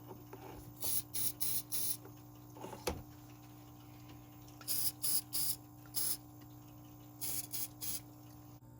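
Aerosol battery terminal protector sprayed in short spritzes onto battery terminals: about eleven brief hisses in three groups of four, four and three, with a faint knock about three seconds in. A faint steady hum runs underneath.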